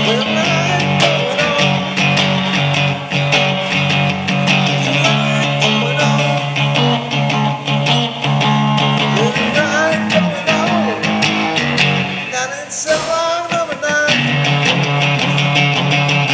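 Electric guitar played through an amplifier in an instrumental break: a repeating low riff with bent lead notes over it. The low riff drops out briefly about 13 seconds in.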